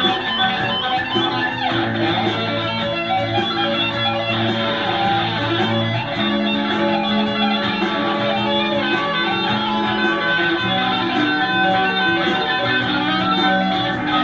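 Guitar music with held plucked notes; a note slides down in pitch about two seconds in.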